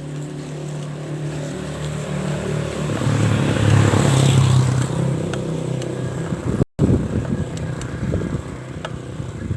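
A motor vehicle's engine grows louder to a peak about four seconds in, then eases off. After a brief dropout, rough rumbling noise follows.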